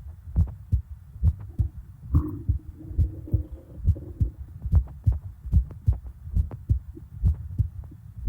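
A person's heartbeat heard through the chest: a steady lub-dub thump a little over once a second. From about two seconds in, a stomach gurgle wavers over it for about two seconds.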